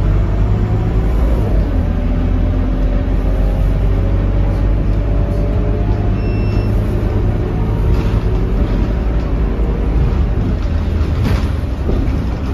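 Scania K230UB city bus driving, heard from inside the passenger cabin: a steady low engine drone with drivetrain tones that slowly shift in pitch. A short beep sounds about six seconds in, and a brief hiss near the end.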